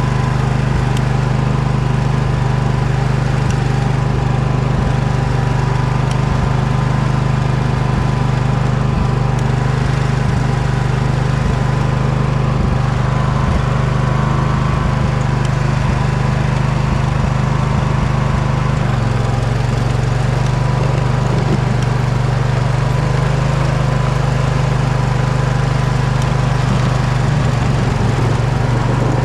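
Poulan riding mower's engine running steadily under load while plowing snow and ice, its note shifting slightly about two-thirds of the way through, with scattered light clicks and knocks.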